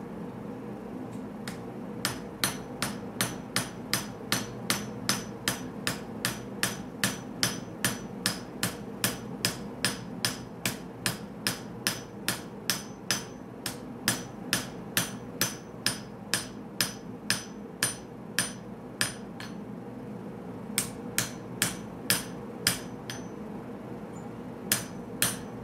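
Hammer blows on a red-hot pattern-welded Damascus blade (1084 and 15N20 steel) on an anvil: a steady run of ringing strikes about three a second from about two seconds in, a short pause, then a few more blows near the end.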